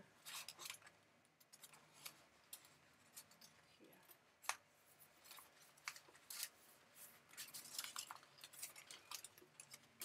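Scissors cutting through a sheet of paper: a series of faint, irregular snips.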